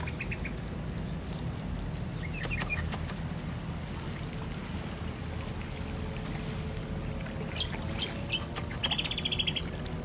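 Birds calling: scattered short chirps, a few a couple of seconds in, then sharper ones about eight seconds in, and a quick trill of repeated notes near the end. A steady low rumble sits underneath.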